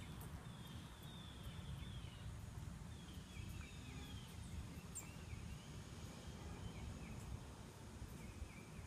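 Faint outdoor ambience: a low steady rumble, with small birds chirping in short, high, falling notes on and off.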